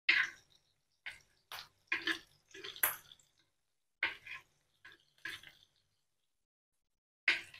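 Kitchen knife roughly chopping tomatoes on a wooden chopping board: about ten quick, unevenly spaced cuts, each a short sharp chop against the board.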